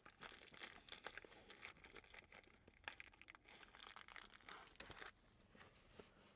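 Faint crinkling and rustling of things being handled, with scattered small clicks, thinning out about five seconds in.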